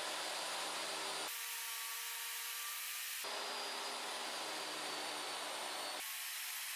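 DeWalt jobsite table saw running, its blade cutting grooves and rabbets in plywood. A steady motor whine under the noise of the cut, with abrupt changes in tone a few times.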